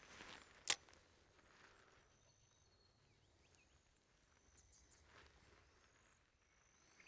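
Swish of a fishing rod cast, with one sharp click less than a second in. Then near quiet with faint high bird chirps.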